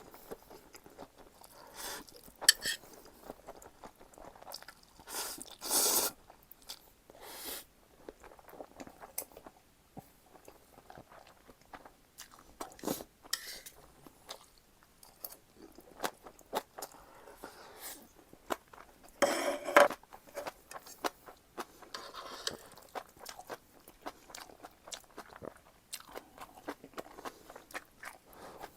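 Close-up eating sounds of instant black-bean noodles and green onion kimchi: steady chewing and crunching with many small wet mouth clicks, and a few louder bursts, the loudest about two-thirds of the way through.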